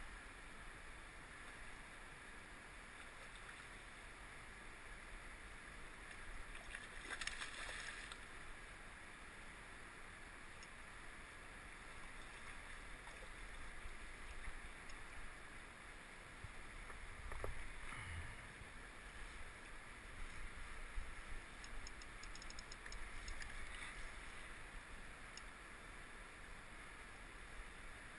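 Steady faint wash of a flowing river against a rocky bank. There is a brief rustle about a quarter of the way in, and a short knock with a low thump a little past the middle.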